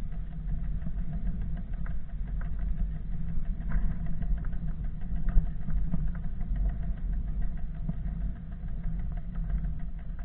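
Steady low rumble of wind and road vibration on a bicycle-mounted camera while riding, with scattered light rattles and clicks.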